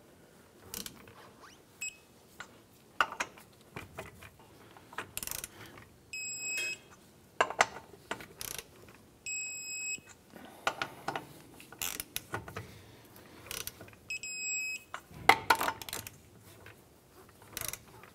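Lug nuts on a Chevy S10's front wheel being torqued to 95 foot-pounds with a torque wrench: the socket and wrench clack and ratchet on each nut. A short, high electronic beep sounds three times, the wrench signalling that the set torque has been reached.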